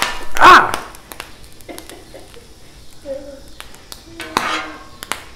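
Diced ham and vegetables sizzling and popping on a hot steel flat-top griddle, with sharp clicks from the popping fat and metal spatulas scraping and tapping the plate. About half a second in comes a short voiced exclamation without words, the loudest sound.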